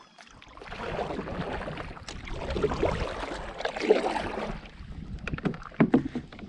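Kayak paddle sloshing through the water beside the hull for a few seconds, then a run of light knocks and clicks against the plastic kayak near the end.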